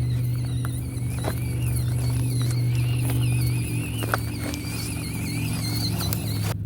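Axial SCX24 RC crawler's small electric motor and gears whining, the pitch wavering up and down with throttle, over a steady low hum, with scattered small clicks of tyres on terrain.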